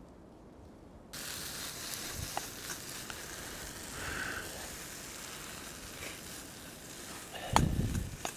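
Fire crackling with a steady hiss, cutting in suddenly about a second in, with scattered small crackles. A heavy low thump near the end.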